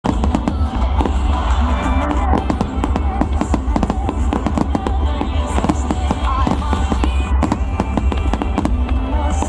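Fireworks display: a rapid, dense series of shell bursts and crackles over a continuous deep rumble, mixed with loud music whose melody wavers throughout.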